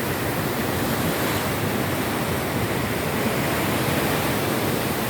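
Steady rushing noise of choppy sea water.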